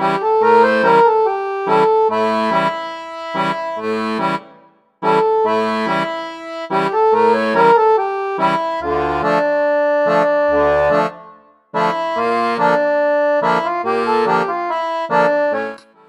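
Background music: a lively melody of quick repeating notes over a steady bass pattern. It breaks off briefly twice.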